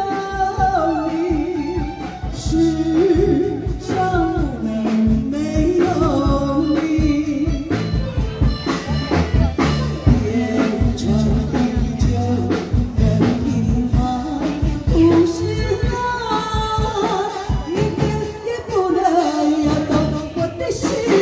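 Taiwanese opera (gezaixi) singing: a performer sings a gliding, ornamented melodic line through a microphone over instrumental accompaniment with a steady percussion beat.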